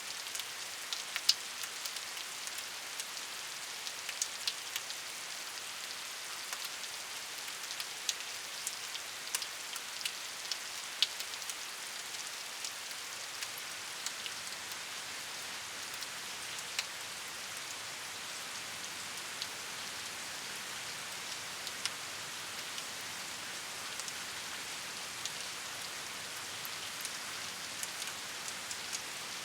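Steady rainfall: an even hiss of rain with individual drops ticking sharply against a surface, scattered through.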